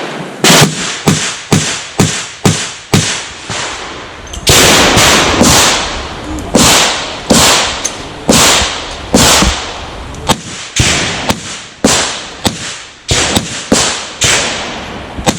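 A handgun firing a stage string: sharp shots in quick groups of two to four, some about half a second apart, with short pauses between groups, dozens of shots in all.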